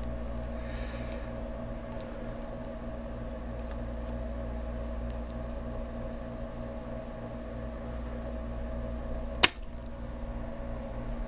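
A spring-loaded plunger solder sucker fires once with a sharp snap about nine seconds in, pulling molten solder off a through-hole transistor's pin. A steady low electrical hum runs underneath.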